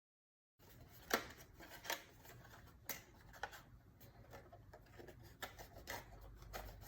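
Cardstock being handled and folded by hand: faint scattered crinkles and light sharp taps, the loudest about a second in, after a brief dead silence at the start.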